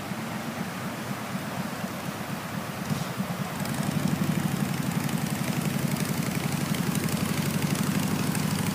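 An engine running steadily with a low, rapidly pulsing hum, getting louder about three and a half seconds in.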